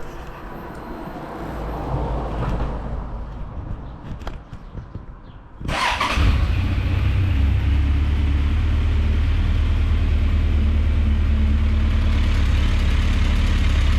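Suzuki GSX1400's inline-four engine being started: it catches with a sharp burst a little under six seconds in and then idles steadily. It is being run to circulate engine flush through the oil before an oil change.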